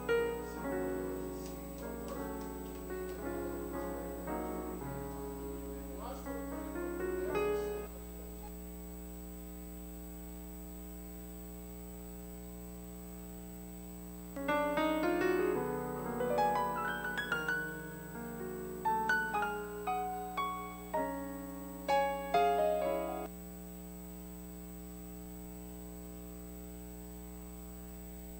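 Piano playing slow chords and melody lines. It stops about eight seconds in, comes back some six seconds later for about nine seconds, and stops again. A steady low hum runs underneath throughout.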